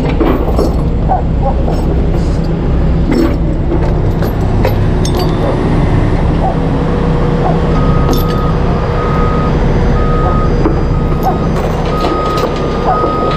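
Heavy truck's diesel engine running steadily, with a reversing alarm starting about eight seconds in and beeping about once a second. Scattered metallic clinks.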